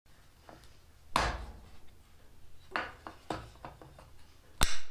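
Hard objects knocking and clattering in irregular strikes: a loud knock about a second in, a quick run of lighter knocks, and a sharp bang near the end.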